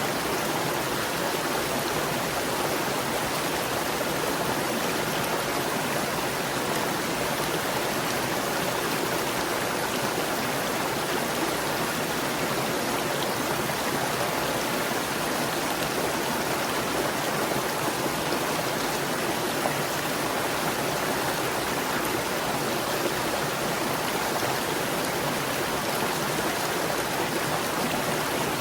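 Small stream running and gurgling steadily over rocks, a constant rushing wash of water.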